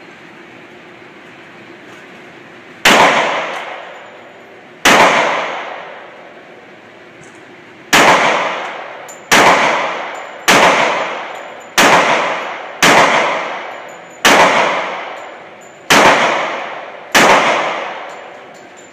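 Ten single gunshots from a handgun in an indoor shooting range, fired at an irregular pace one to three seconds apart. Each shot is a sharp crack with a long echoing decay.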